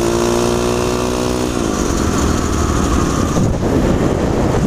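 Pit bike's Piranha 140cc single-cylinder four-stroke engine running at steady revs. About a second and a half in, its pitch drops as the revs come down, and the sound turns rougher and noisier.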